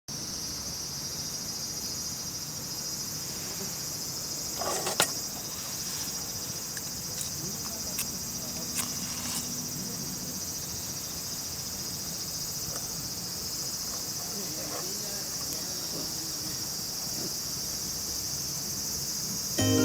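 A steady, high-pitched chirring of insects, a cricket-like chorus. A single knock about five seconds in, with a couple of fainter clicks a few seconds later.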